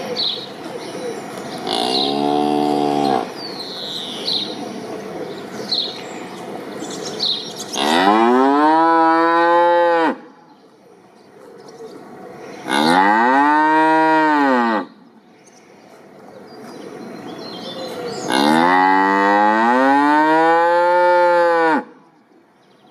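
Cow mooing four times: a shorter moo about two seconds in, then three long, loud moos, each rising and then falling in pitch. Birds chirp in the background during the first few seconds.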